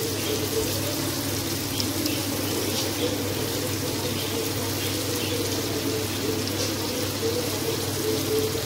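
Wet hands peeling charred roasted eggplant over a tub of water, with small splashes and drips of water. Under it runs a steady low hum and hiss.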